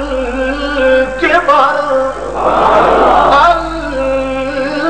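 A man's voice chanting Arabic praises of God in long, held melodic notes that slide from pitch to pitch.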